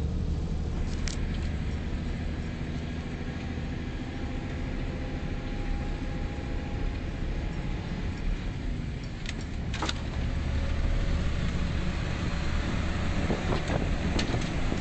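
Scania 124/470 truck's straight-six diesel running under steady load, heard from inside the cab as a low drone with tyre and road noise on snow. A few sharp clicks and rattles come through, with more of them near the end.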